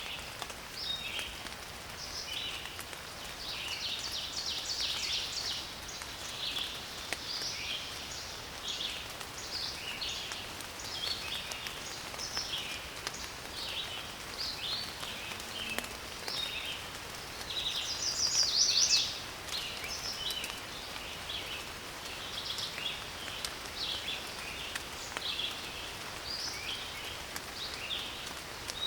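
Several songbirds singing in a forest, short chirps and trills overlapping almost without a break, with one louder rapid trill about two-thirds of the way through. A faint steady hiss of light rain lies underneath.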